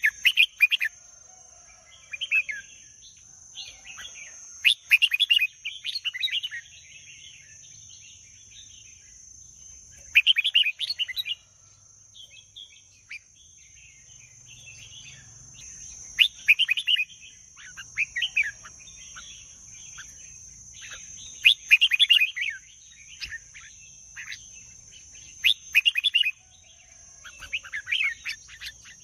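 Red-whiskered bulbul singing: short, bright warbled phrases of about a second each, repeated every one to three seconds.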